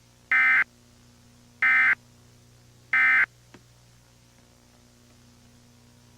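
Emergency Alert System end-of-message tones: three short bursts of SAME digital data about 1.3 s apart, closing the flash flood warning broadcast. A faint steady hum lies underneath.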